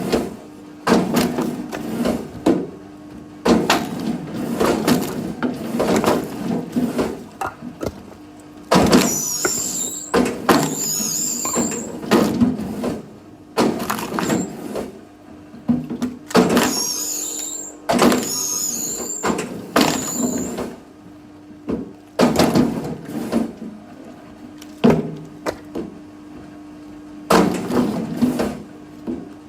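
Firewood being split: repeated blows and cracking of wood, twice with high, wavering squeals as the wood is forced apart.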